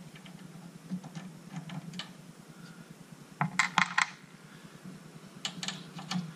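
Small metallic clicks and scrapes as a wire's spade connector is worked off the first terminal of the ceramic external ballast resistor below the ignition coil, with a quick cluster of sharp clicks about three and a half seconds in. A low steady hum runs underneath.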